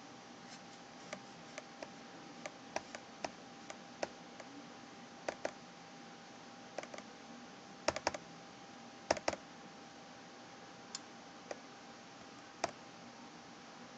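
Lenovo ThinkPad Edge E320 laptop touchpad tapped with a finger at an irregular pace, each tap giving a sharp plastic clack. Its left side sits loose and rattles after a repair. Some taps come in quick doubles and triples around the middle, over a faint steady hum.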